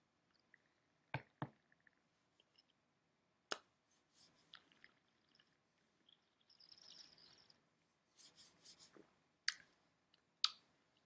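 Quiet wet mouth sounds of sipping and swishing red wine. There are a few sharp clicks, and a hiss of about a second comes a little over six seconds in.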